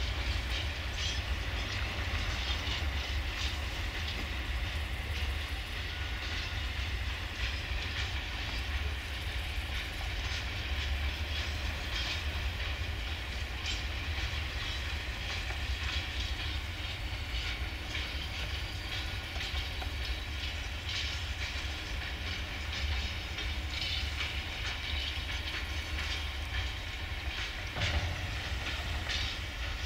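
Empty coal hopper wagons of a freight train rolling by, their wheels clicking and clattering irregularly over the rails above a steady low rumble.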